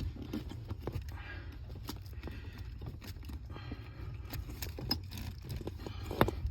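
Scattered small clicks and scrapes of hands working the plastic throttle-pedal wiring connector under a car's dashboard, over a low steady rumble, with a sharper click near the end.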